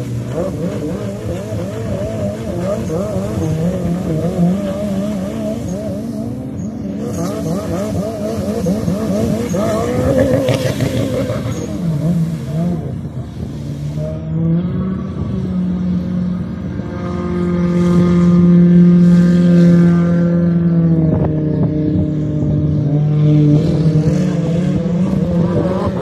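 Jet ski engines running at high revs, the pitch wavering up and down as the craft skim and turn on the water. In the second half one engine note grows louder and holds steady for a few seconds, then drops in pitch.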